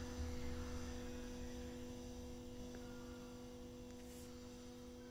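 Steady electrical hum: two low held tones under a faint hiss, slowly getting a little quieter.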